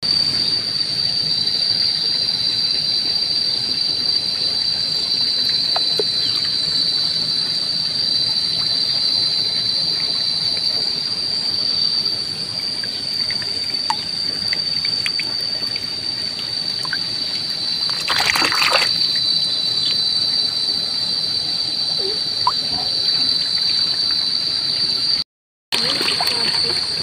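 Steady, high-pitched chirring of crickets with no break, with a short splash of water about 18 seconds in and a few faint clicks.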